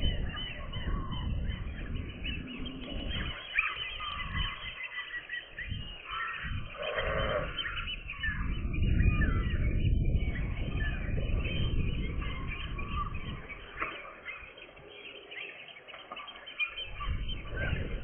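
Gulls calling over a low rumble, picked up by a rooftop camera's microphone, which sounds thin with no high end. The rumble drops away for a few seconds near the end.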